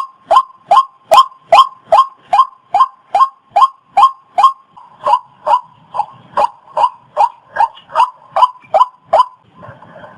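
Waterhen calling: short harsh calls repeated about two and a half times a second in a long even series, stopping shortly before the end.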